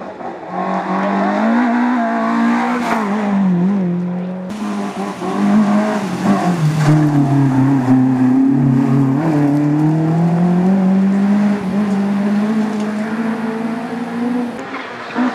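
Peugeot 205 rally car's engine at high revs, rising and falling in pitch as the driver works through the gears and lifts for the corners while it passes. There is an abrupt change about four seconds in where a second pass begins.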